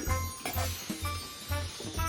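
Background music with a steady bass beat, about two pulses a second, under sustained high notes.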